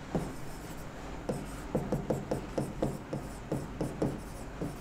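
Marker pen writing on a whiteboard: a quick run of short rubbing strokes as the letters are drawn, closer together from about a second in.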